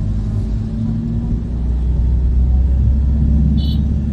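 Steady low rumble of a vehicle driving, heard from inside the cabin: engine and road noise. A brief high chirp sounds near the end.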